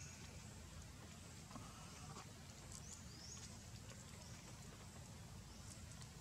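Near silence: faint outdoor background with a few faint, short rising chirps scattered through it.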